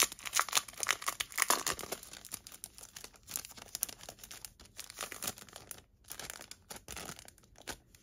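Plastic resealable bag crinkling and rustling as it is opened and handled. The crackling is dense for the first couple of seconds, then thins to scattered crinkles.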